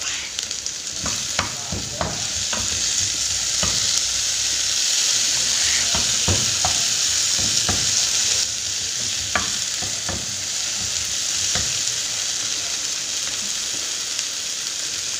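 Chopped chilies, shallots and garlic sizzling in hot oil in a frying pan, with a wooden spatula stirring and knocking against the pan now and then. The sizzle grows louder after about two seconds and eases a little after about eight.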